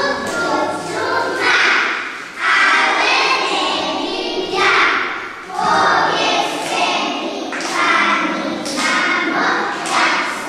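A group of young children singing together, in held phrases with short breaks between them.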